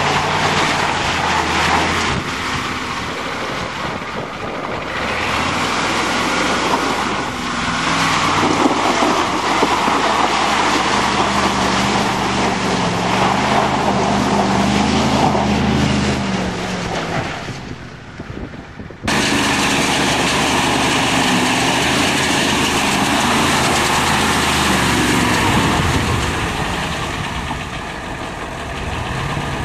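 Ford F-250 diesel pickup's engine revving as the truck drives through mud and standing water, with mud and water splashing under the wheels. The engine pitch climbs and falls with the throttle, and the sound jumps abruptly about two-thirds of the way through to another stretch of the same driving.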